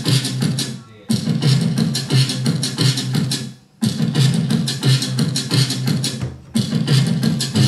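Drum loop played back over speakers and picked up by a handheld room microphone. It repeats about every two and a half to three seconds, breaking off briefly between repeats.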